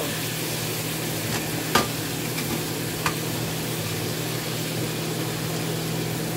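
Shrimp sizzling in a hot pan as they are scraped in from a frying pan and stirred with a silicone spatula. There are a few sharp knocks of pan and spatula, the loudest a little under two seconds in, over a steady low hum.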